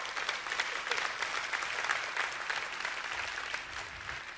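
Large seated audience applauding, a dense patter of many hands that thins out near the end.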